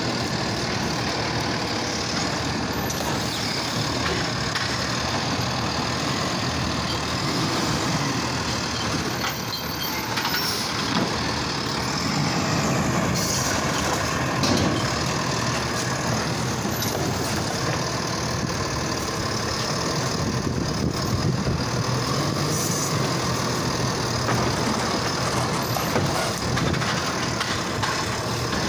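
Automated side-loader garbage truck's diesel engine running steadily while its hydraulic arm lifts a wheeled trash cart and dumps it into the hopper. A few brief knocks stand out over the engine, around 11, 14 and 26 seconds in.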